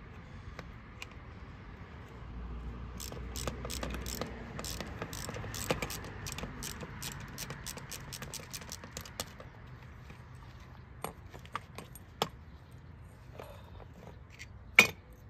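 Hand ratchet clicking at about three clicks a second for several seconds as it works a fitting on a new steering center link assembly, followed by scattered metal clinks and one sharp metal clank near the end.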